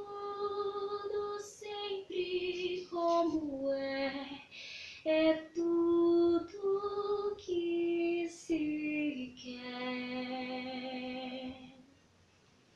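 A teenage girl singing unaccompanied: a slow phrase of held notes, several stepping down in pitch, ending on one long low note that stops about twelve seconds in.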